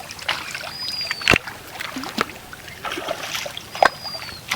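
Water splashing and sloshing from fishing work in water, broken by two sharp knocks, about a second in and near the end. Twice, a thin high tone falls slightly over about half a second.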